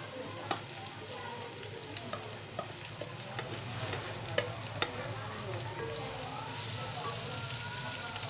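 Sliced onions and chopped garlic frying in oil in an aluminium pot (degchi), with a steady sizzle. Scattered clicks and knocks come from stirring with a wooden spatula.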